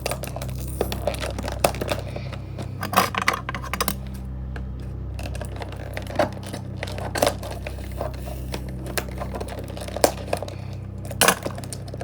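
Scissors cutting through stiff plastic packaging, with irregular snips and crackles of the plastic, over a steady low background hum.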